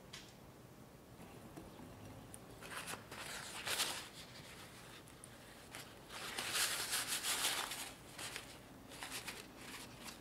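Paper kitchen towel rustling in several short bursts, the longest and loudest a little past halfway.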